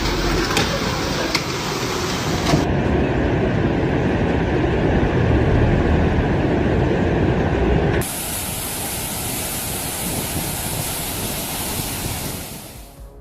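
Steady rushing noise of storm and flood footage, heavy rain and running floodwater, in three clips with abrupt changes about 2.5 s and 8 s in, fading out near the end.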